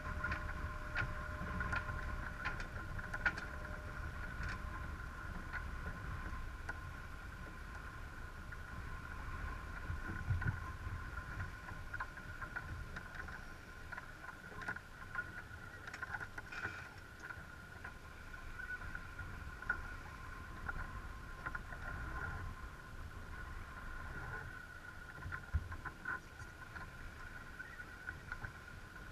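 Sailing yacht under way: water rushing along the hull and wind on the deck-mounted camera make a low, steady rumble, with occasional short clicks. A faint, steady high whine runs underneath.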